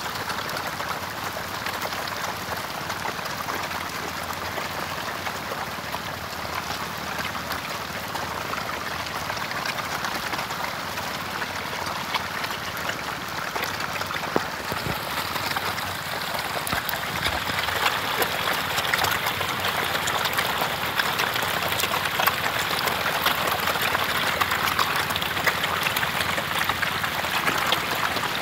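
Dense, continuous splashing and crackling of a huge mass of hybrid magur catfish thrashing packed together at the pond surface, sounding like heavy rain on water. It grows louder a little past halfway through.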